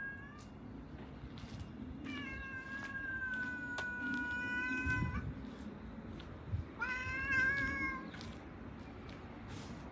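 A cat meowing loudly. One long, drawn-out meow begins about two seconds in and lasts about three seconds, sinking a little in pitch. A shorter meow of just over a second follows about seven seconds in, with the tail end of another right at the start.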